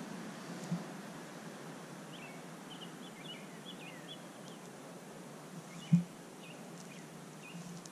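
Night-time outdoor ambience: a steady hiss with scattered faint, high, short chirps from small animals. Two dull thumps break in, a small one under a second in and a louder one about six seconds in.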